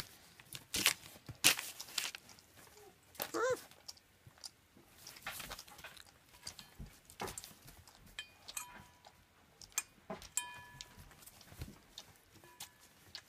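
German Shepherd puppies crunching and chewing dry kibble from stainless steel bowls, irregular crisp crunches and clicks. One short puppy whine about three and a half seconds in, and a few brief metallic rings of a bowl being knocked later on.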